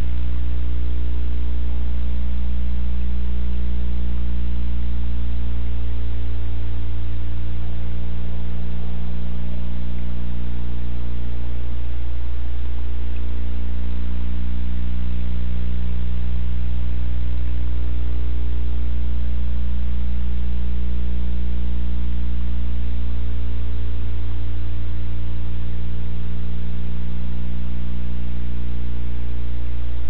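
A steady low hum with a stack of evenly spaced overtones, unchanging in level, with one of its higher tones fading briefly about every six seconds.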